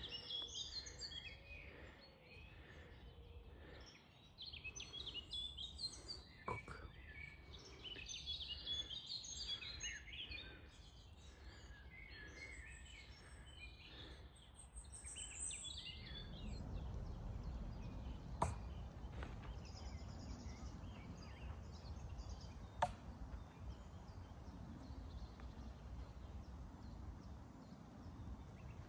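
Birds chirping and singing over faint outdoor background for the first half. Then a steady low rumble with two sharp impacts about four seconds apart: thrown knives striking the target.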